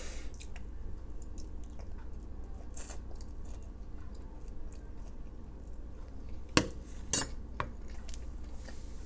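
Eating at a table: a few sharp clicks of a utensil against a takeout container, once about three seconds in and three or four more near the end, with faint chewing between them.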